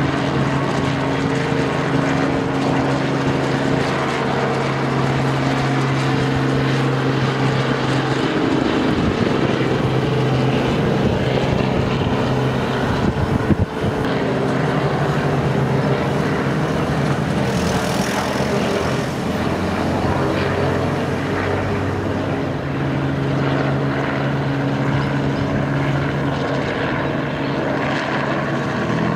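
Light two-bladed police helicopter flying low overhead: a steady engine and rotor drone whose pitch shifts a little as it moves, with one brief thump about halfway through.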